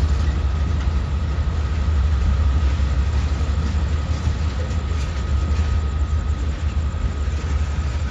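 Freight train rolling past: a steady low rumble with a faint, steady high tone above it.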